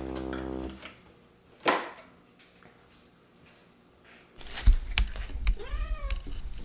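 F1 Savannah cat giving one meow that rises and falls in pitch, about five and a half seconds in. A steady hum stops within the first second, and low knocks and rumbling start about four seconds in.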